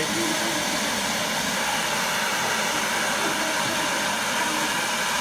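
Handheld canister gas torch burning with a steady, even hiss while it heats a quarter held in its flame.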